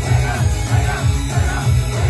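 Live J-pop idol group performance through a club PA: a loud backing track with heavy, pulsing bass and singing over it.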